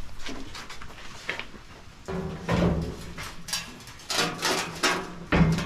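Knocks, clanks and scrapes of metal parts being handled and fitted on a homemade steel welding cart, sparse at first and busier from about two seconds in, with a steady low hum under the later part.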